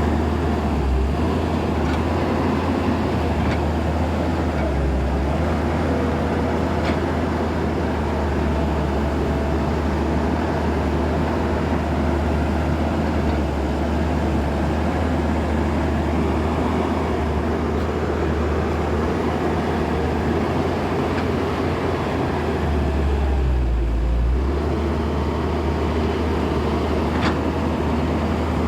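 Heavy diesel engine running steadily, a deep unbroken rumble, with a few faint clicks and knocks over it.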